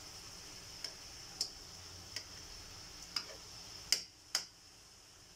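Metal tongs clicking against a steel wok while pork slices are turned in the pan: six sharp clinks about half a second to a second apart, the loudest pair near the end, over a faint steady high hiss.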